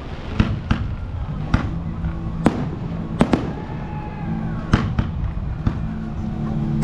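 Aerial fireworks going off: about nine sharp bangs at irregular intervals, some in quick pairs, over a continuous low rumble of the display.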